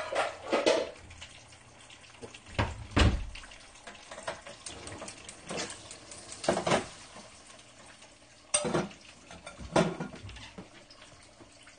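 Frying pans being handled on a gas stove: a string of separate knocks and clatters of metal pans and utensils, the heaviest a low thump about three seconds in and a sharp click near the end.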